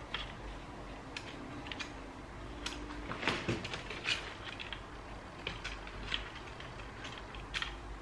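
Scattered small clicks and taps of plastic and metal parts being handled inside an open ThinkPad T430 laptop as its cables are tucked back into place, with a cluster of louder clicks about three to four seconds in.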